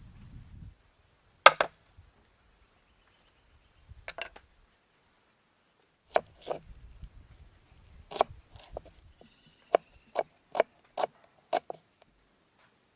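Sharp wooden chopping knocks, about eleven of them: a few spaced strikes, then a quicker run at roughly two a second in the second half.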